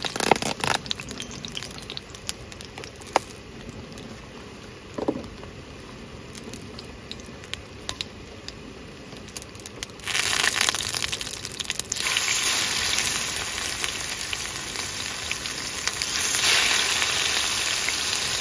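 Salmon fillets hit a very hot oiled pan on a Jetboil gas stove and start sizzling loudly about ten seconds in, growing louder about two seconds later. Before that there are only a few clicks and knocks of handling. The pan is too hot and burns the undersides of the fish.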